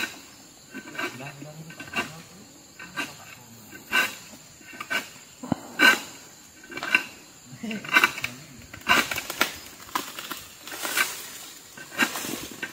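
Sharp knocks about once a second, a harvesting tool hacking at an oil palm crown to cut fronds and the fruit bunch.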